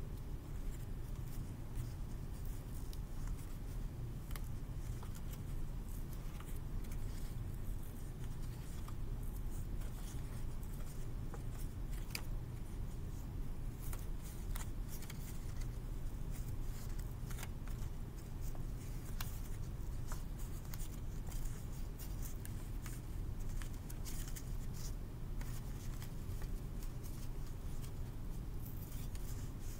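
Paper being folded and creased by hand, with faint scattered crinkles and rustles over a steady low hum.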